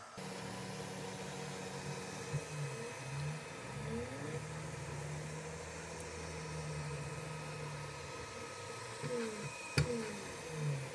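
FLSun V400 delta 3D printer starting a print: its fans hum steadily while the stepper motors whine in rising and falling pitch as the printhead moves, twice. There is a sharp click near the end.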